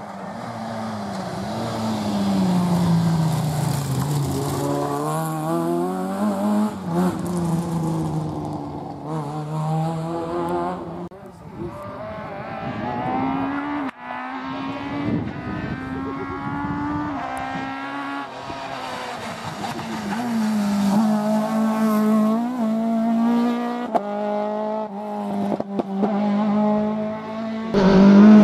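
Rally car engines revving hard as the cars accelerate flat out, the note climbing and then dropping at each gear change, over several separate passes.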